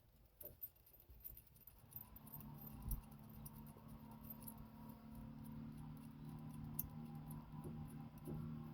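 Faint small clicks and handling of truck wiring as the electric fuel pump's hot wire is disconnected. From about two seconds in, a quiet steady hum sits underneath.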